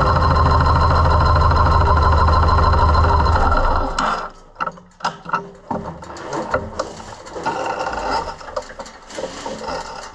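Yamaha Road Star XV1600's air-cooled V-twin idling steadily, then cutting off suddenly about four seconds in. After it, scattered mechanical clicks and knocks.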